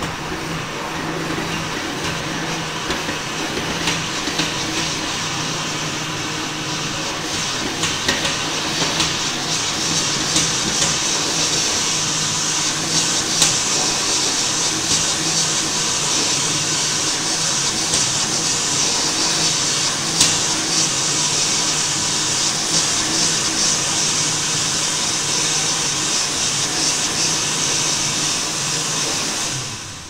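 World Dryer push-button hand dryer running its timed cycle: a steady rush of blown air over a low motor hum, winding down at the very end.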